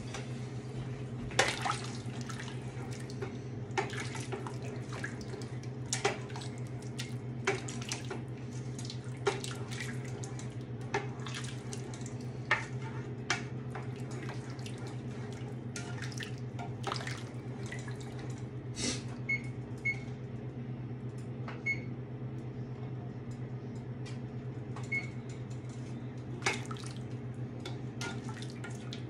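A long spoon stirring a large pot of gumbo, sloshing through the thick liquid and knocking against the side of the pot every second or two, over a steady low hum.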